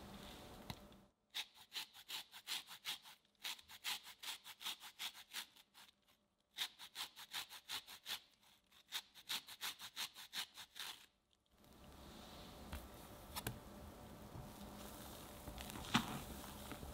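Orange zest grated on a fine metal grater: three runs of quick, even scraping strokes with short pauses between them, stopping about eleven seconds in. After that, soft sounds of a spatula folding the zest into sponge batter, with a few light taps.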